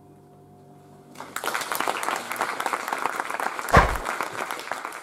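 A short hush of room tone with a faint steady hum, then an audience breaks into applause about a second in and keeps clapping. One loud thump stands out about four seconds in.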